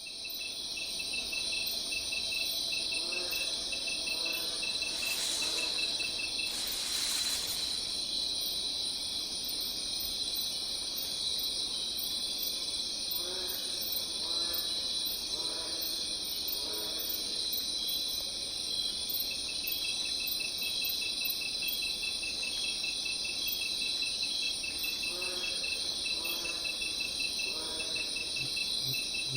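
Crickets chirping in a steady chorus, with a fast trill running throughout and faint lower calls now and then.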